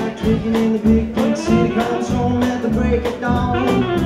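Live band playing a bluesy Americana song: drums keeping a steady beat with saxophone, electric bass and acoustic guitar, and a man singing.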